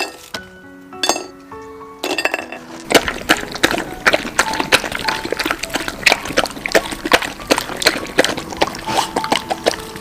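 Light background music of single held notes, then from about two seconds in a busy, loud clatter of many small clinks and splashy noise, with musical notes still running underneath.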